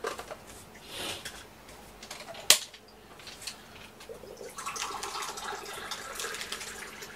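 A single sharp click about two and a half seconds in, then water being poured out for a drink for the last few seconds.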